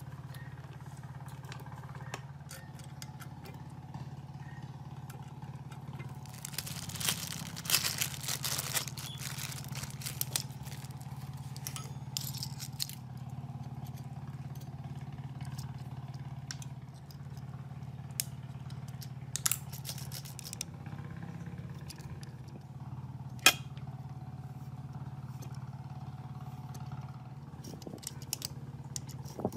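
Metal parts of an old child's bicycle being handled and fitted by hand with small tools: scattered clicks, taps and scrapes, with a dense patch of scraping about seven to nine seconds in and one sharp click a few seconds before the end, over a steady low hum.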